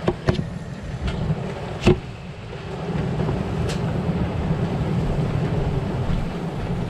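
Knocks and clicks in a pickup truck's cab as people climb in, with one loud thump about two seconds in, then a steady low rumble.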